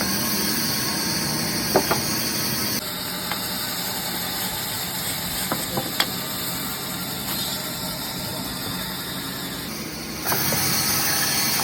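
Woodworking machinery running steadily with a hiss, with a few short knocks. The sound changes abruptly twice, about three seconds in and near the end.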